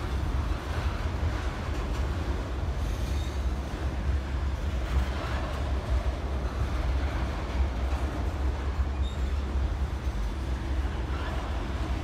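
Freight train of tank cars rolling across a steel girder bridge overhead: a steady low rumble of wheels on rail.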